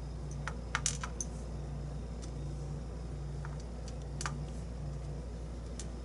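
Small, light clicks of lock pins and springs being set down one by one in a plastic pin tray. A quick cluster of clicks comes about a second in, then single clicks every second or so, over a low steady hum.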